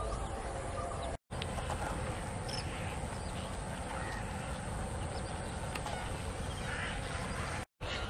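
Wetland ambience: a steady low background noise with scattered short bird calls. It cuts out twice, briefly, about a second in and near the end.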